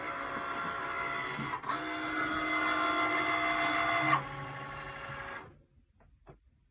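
Cricut Maker cutting machine's motors whining as it drives its tool carriage along the rail over the loaded mat at the start of a job. The whine shifts pitch twice and stops about five and a half seconds in.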